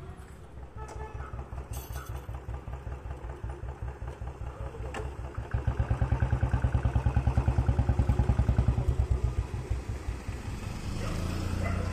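A vehicle engine running with a rapid, even low chugging, much louder for about four seconds in the middle before it drops back.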